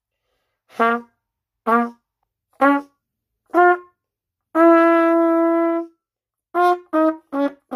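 Trumpet playing a slow phrase: four short notes climbing in pitch, one long held note a little past halfway, then a few quicker notes stepping back down near the end.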